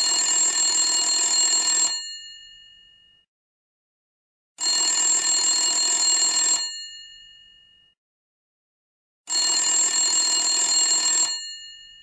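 Vintage telephone bell ringing in three rings of about two seconds each, a few seconds apart. Each ring cuts off and leaves the bell sounding on briefly as it dies away.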